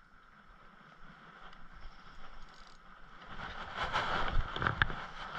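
A hooked crappie splashing at the water's surface while being reeled in: faint at first, then louder from about three and a half seconds in, with several sharp splashes.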